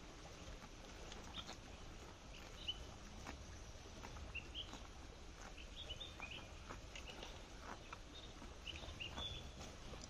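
A calf tearing and chewing grass, a scatter of short crisp crunching clicks, while small birds chirp in brief high notes throughout.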